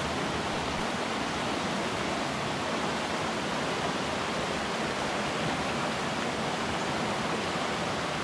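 Shallow river rapids rushing steadily over rocks and boulders, an even, unbroken wash of water noise.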